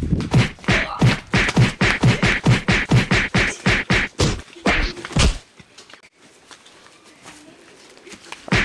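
A rapid run of blows landing in a scuffle, whacks and thumps at about four a second, that stops suddenly about five seconds in.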